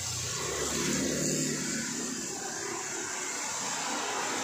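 Street traffic: a motor scooter's engine passes close by, its note rising in the first second or so, followed by a car, with steady tyre hiss from the wet road.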